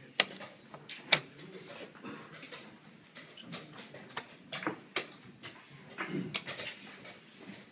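Sharp wooden clacks of a blitz chess game: pieces set down on the board and chess clock buttons struck in quick succession. Two loud clicks come close together right at the start, then a scattered run of lighter ones.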